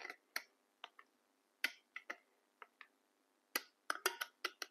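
Spoon clicking and tapping against a jug and pan as tomato sauce is spooned into a lasagna pan: a scattering of light, irregular clicks, bunched around two seconds in and again near the end.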